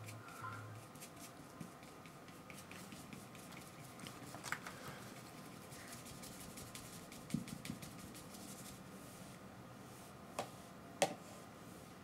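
Faint handling sounds of acrylic painting: a paintbrush scratching on canvas and a few small clicks and knocks as brushes and palette are handled on the tabletop, over a faint steady hum.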